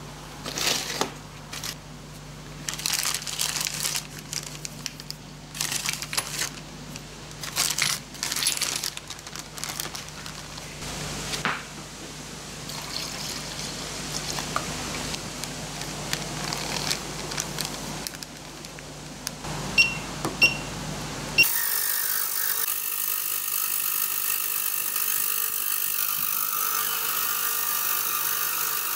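Bench handling with knocks and clicks and liquid poured into a tank, then three short beeps from an ultrasonic cleaner's control panel about 20 seconds in. The Digitech ultrasonic cleaner then starts and runs with a steady high buzzing hiss for the rest of the time.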